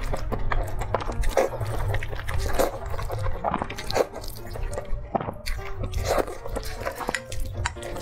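Close-miked slurping and chewing of a mouthful of thin noodles: wet sucking strokes every half second to a second, with mouth noises between them.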